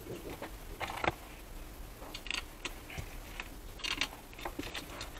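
Small screws being tightened by hand into the metal housing of an Eberspacher air heater: a few light clicks and scrapes, scattered and irregular.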